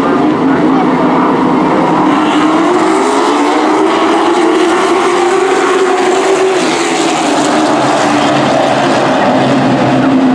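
A pack of super trucks racing past at speed, several engines running together. Their note climbs over the first half and then holds.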